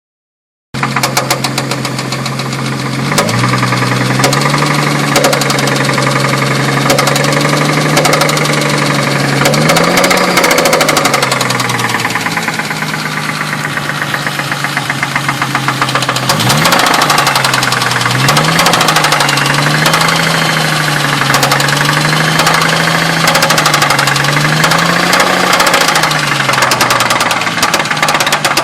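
2000 Ford Mustang engine running warm with a rapid knock throughout, its speed rising and dipping several times. The owner takes the knock for possible rod knock.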